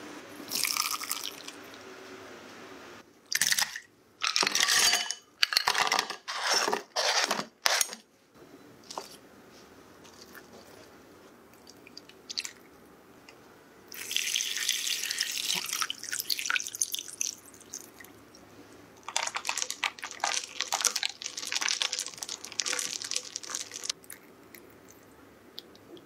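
Liquid pouring in a thin stream into a glass bowl of sliced lemons and limes for a few seconds, with a second stretch of pouring later. Earlier, a run of five or six short, loud noises, each about half a second long.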